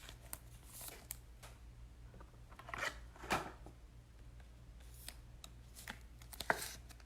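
Faint rustling and soft clicks of trading cards and their plastic holders being handled, with a couple of louder rustles about three seconds in and again near the end.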